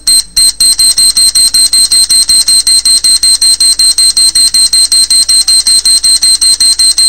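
Electronic bomb-timer beeping sound effect: loud, high-pitched beeps that speed up from about three a second to about six a second about half a second in, like a countdown.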